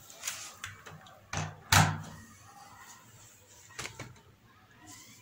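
A few short knocks and clicks. The loudest is a sharp thump a little under two seconds in, with a fainter knock about two seconds later.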